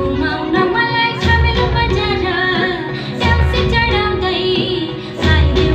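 Song with a woman singing over music, with heavy bass hits about every two seconds, played loud.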